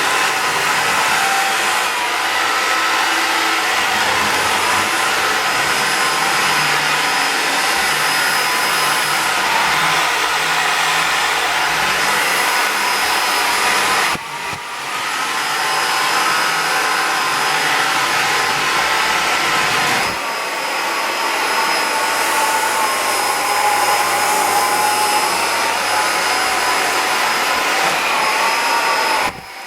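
Xiaomi vacuum cleaner running steadily, its motor whine wavering slightly in pitch, with a brief dip in level about halfway through.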